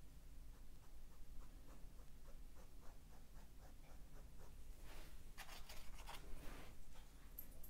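Bristles of a filbert grainer brush scratching short, quick strokes across an acrylic canvas, flicking in fine fur hairs; the strokes come thick and fast about five to six seconds in.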